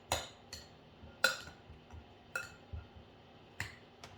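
A spoon clinking against a bowl and dishes, about six short, sharp knocks at uneven intervals, as mashed potato filling is worked and scooped.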